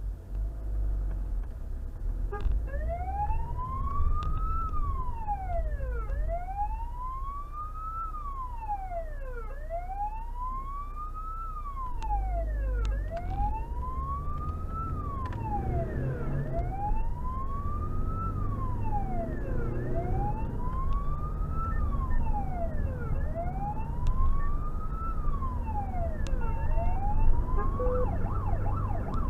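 Emergency vehicle's electronic siren on a slow wail, each cycle climbing for about two seconds and dropping back, about eight times. Near the end it switches to a fast yelp. Engine and road noise run underneath.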